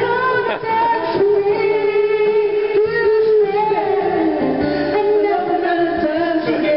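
Karaoke: a voice singing long held notes into a microphone over a music backing track.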